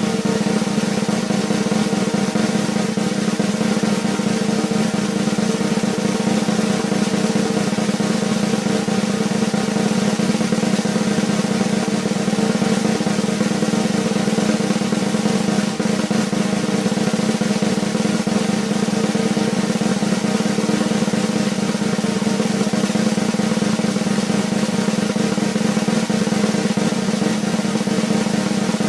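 A continuous suspense drum roll, held at an even level without a break, of the kind used to build tension before a winner is announced.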